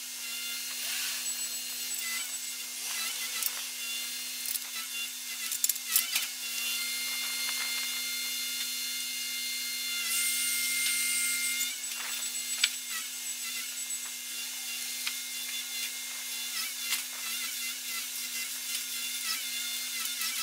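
Truck-mounted loader crane's hydraulics running with a steady whine while it lifts a load, broken by a few sharp knocks and clicks and a brief hiss about halfway through.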